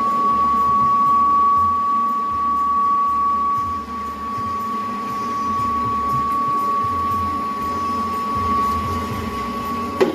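Sawdust charcoal briquette cutting machine running: a steady high whine holding one pitch over a low hum, with a sharp knock near the end.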